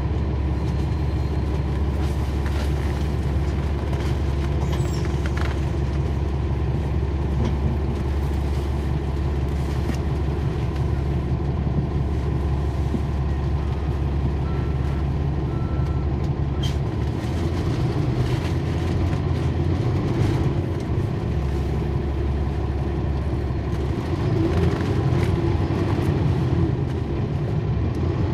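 Cummins ISL9 diesel engine of a NABI 40-SFW transit bus, heard from inside the bus, running with a steady deep drone. Its note shifts about two-thirds of the way through and rises near the end as the bus works harder.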